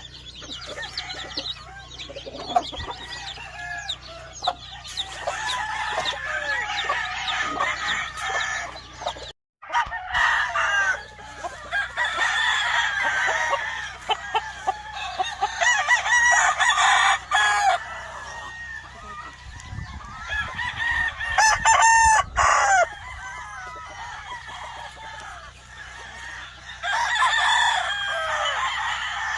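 Gamefowl chickens: a busy mix of chicks peeping and hens clucking, with roosters crowing now and then; loudest about two thirds of the way through. A brief silent break comes about nine seconds in.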